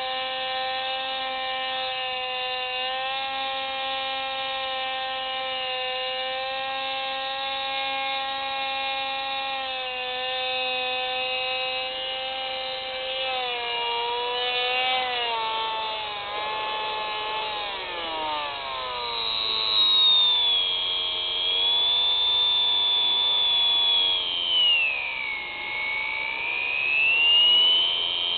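Electric motors of an FPV drone in flight, recorded on board: a steady motor hum for about the first twelve seconds, then the pitch wavers and slides up and down, and in the second half a high whine sweeps up and down as the throttle changes.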